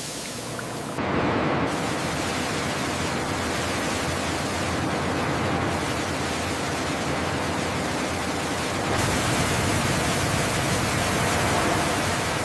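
Steady rushing hiss spread across all pitches, with no clear tone or rhythm. It grows louder with a sudden step about a second in and again about nine seconds in.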